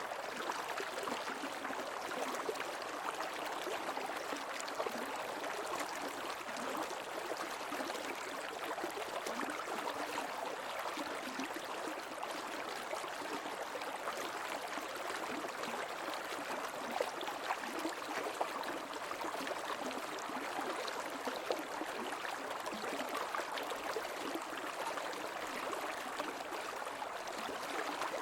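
Shallow creek water running steadily over stones, a continuous rushing with small splashes and trickles.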